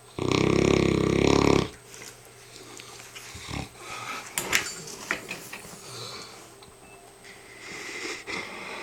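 Mastiff snoring in his sleep: one loud, long snore with a rumbling pitch, lasting about a second and a half. It is followed by quieter breathing, a few soft clicks and a breathy hiss near the end.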